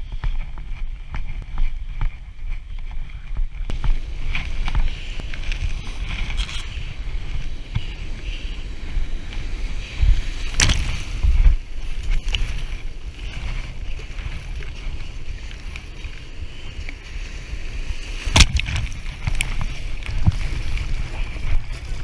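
Wind buffeting an action camera's microphone as a kayak is paddled out through breaking surf, with the hiss of white water joining about four seconds in. Two sharp splashing hits of water on the kayak, about ten seconds in and a few seconds before the end, are the loudest sounds.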